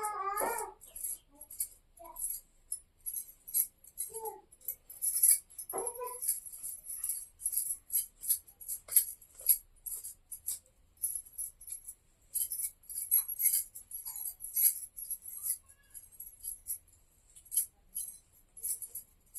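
Long hair being combed, many quick crisp strokes following each other about every half second.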